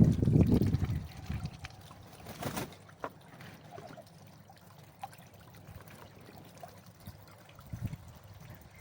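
Water trickling and splashing. There is a louder rush in the first second, then quieter dribbling with a few small clicks.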